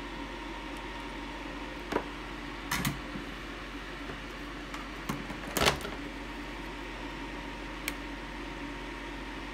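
Scattered small clicks and knocks of tools and small parts being handled during an electronics kit build, the loudest about halfway through, over a steady electrical hum.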